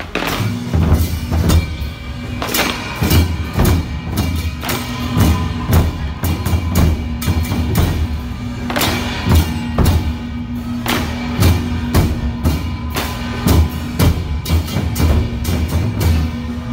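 A festival drum troupe beating large red barrel drums in a fast, dense rhythm: heavy low drum hits mixed with many sharp clicking strikes, with a steady tone held underneath.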